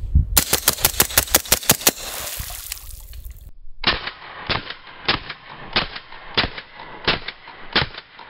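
Suppressed CMMG Banshee .45 ACP firing a rapid string of about ten shots, each a short sharp report. After a sudden cut about three and a half seconds in, a duller, slower run of shots follows, roughly two-thirds of a second apart.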